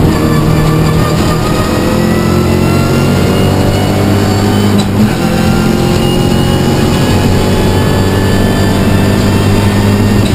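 Peugeot 207 R3T rally car's turbocharged 1.6-litre four-cylinder engine, heard inside the cabin, pulling hard under load with its note climbing slowly. There is a sharp click about halfway through.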